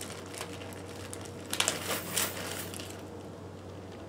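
Small snap fastener parts being handled: a short cluster of clicks and crinkles about a second and a half in, over a steady low hum.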